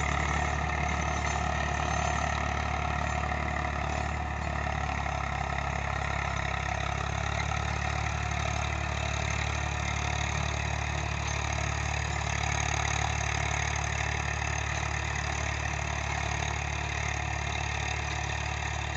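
Eicher 380 tractor's three-cylinder diesel engine running steadily under load as it drives a rear-mounted rotavator churning through the soil.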